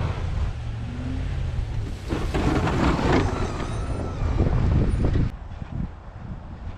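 Plow truck's engine running, with a louder rushing noise for about three seconds in the middle that stops abruptly.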